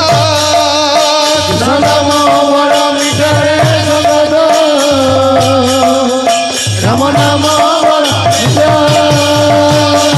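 Kirtan music: small hand cymbals clashing and a khol barrel drum beating a steady rhythm, with a melody line rising and falling over them.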